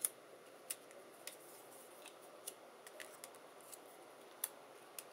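Light, scattered clicks and taps of die-cut cardstock pieces being picked up and set down on a cutting mat, at irregular intervals.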